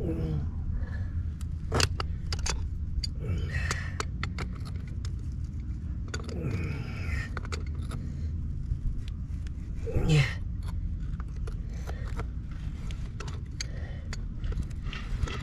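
Scattered metal clinks, taps and scrapes of hand tools working a fitting on a water meter, over a steady low rumble.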